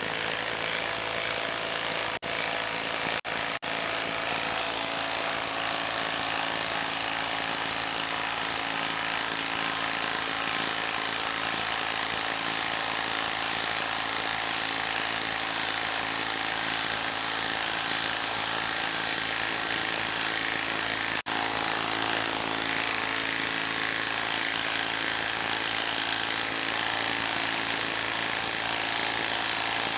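Milwaukee M18 Fuel half-inch Stubby impact wrench hammering steadily under heavy load as it drives a 10-inch lag screw into dense wood. The trigger is briefly released about 2 and 3 seconds in, and again around 21 seconds.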